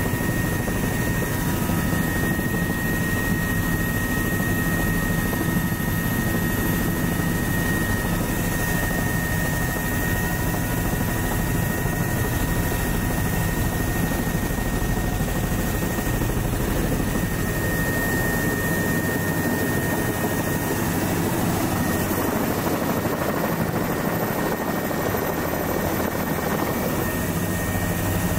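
Tour helicopter in flight, heard from aboard with the doors off: a steady, loud rotor and engine noise with a thin, steady high whine over it.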